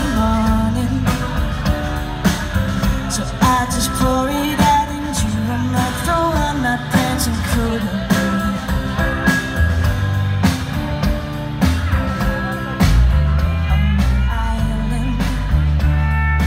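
Live rock band playing: a woman singing over electric guitar, bass guitar and drums. The bass and drums get heavier about thirteen seconds in.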